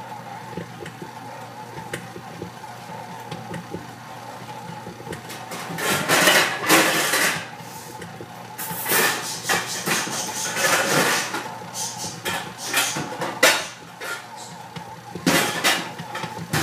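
Metal baking pans clattering and knocking as they are taken out of a kitchen cupboard, in irregular bursts with the loudest scraping clatters about six and nine seconds in, over a faint steady hum.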